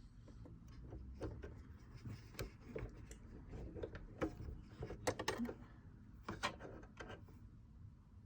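Light clicks, taps and rubbing of small parts being handled on a Brother sewing machine as a new needle is fitted, busiest in the middle of the stretch.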